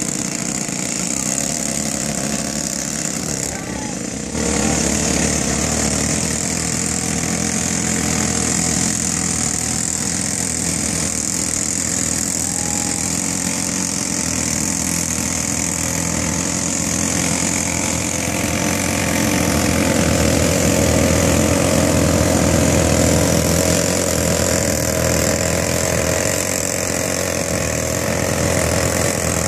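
Pneumatic jackleg rock drill hammering into a rock block in a drilling contest. It comes up to full run about four seconds in, then keeps drilling steadily with a loud air-exhaust hiss, a little louder past the middle.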